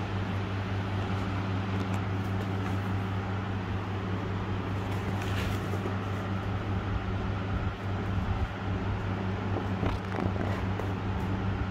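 Steady low electrical hum over a constant hiss, such as a fan or appliance motor running.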